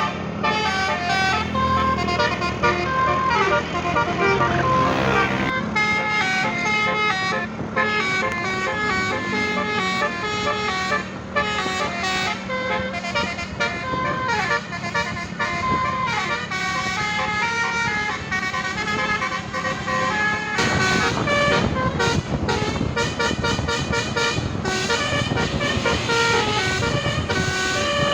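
Indonesian bus's 'basuri' telolet musical horn playing a quick melody of stepped notes over the bus's running engine. The engine's low rumble grows louder from about two-thirds of the way in.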